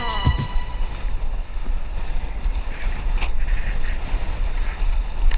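Strong wind buffeting the microphone with a heavy, uneven rumble, over water rushing and splashing against a windsurf board. The tail of a song fades out at the very start.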